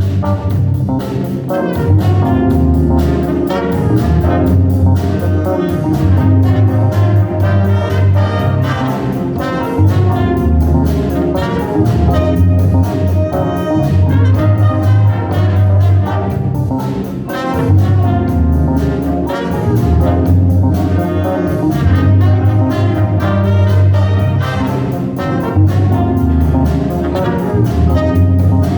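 A band playing an instrumental jazz tune, with brass horns carrying the melody over a bass line and a steady drum beat.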